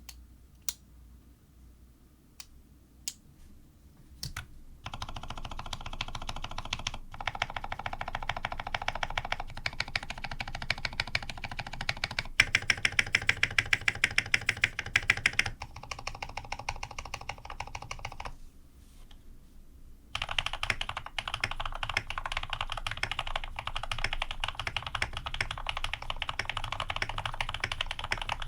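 Typing on a tuned Ar87 tenkeyless mechanical keyboard with lubed Cherry retooled black-housing switches with cream stems, 70 g springs, PBT keycaps and an aluminium plate. A few single keystrokes at first, then fast continuous typing, a pause of about two seconds, and fast typing again.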